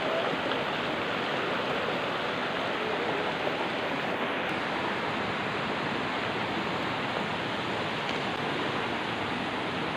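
Shallow, rocky river rushing steadily over stones and small rapids.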